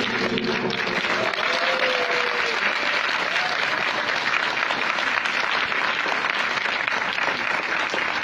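An audience applauding steadily, with a brief voice heard above the clapping about two seconds in.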